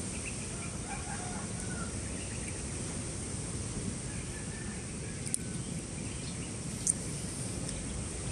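Outdoor ambience: a steady background hiss with faint bird chirps, and two sharp clicks about five and seven seconds in.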